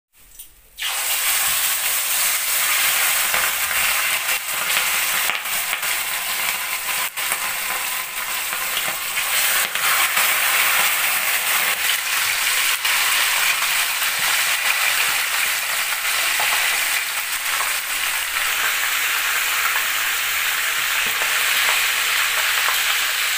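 Whole fish, scales left on, sizzling in hot oil in a frying pan. The loud sizzle starts suddenly about a second in as the fish go into the pan, then runs on steadily with occasional sharp pops and spits.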